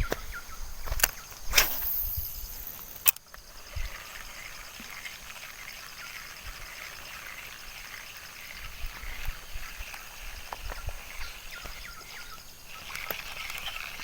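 Outdoor ambience: a faint, steady chorus of small animals calling in a fine, even pulse, over a low rumble of wind on the microphone. A few sharp knocks sound in the first three seconds.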